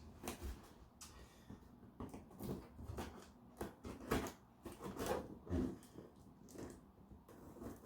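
Cardboard shipping box being handled and opened: irregular rustles, scrapes and soft knocks, several a second at times.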